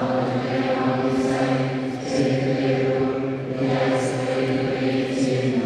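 A group of voices singing a slow liturgical chant together, holding long steady notes with brief pauses between phrases.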